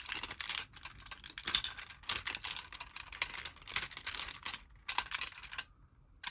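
Plastic parts and joints of a Bandai DX Wing Gundam transforming toy clicking and ticking irregularly as they are rotated and repositioned by hand, with a quieter pause near the end.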